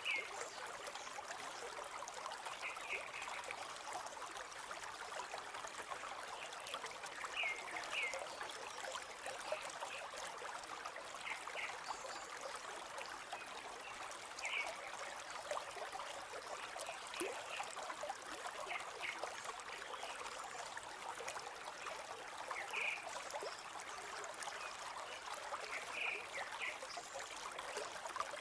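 A forest stream flowing and trickling steadily, with short high bird chirps every few seconds.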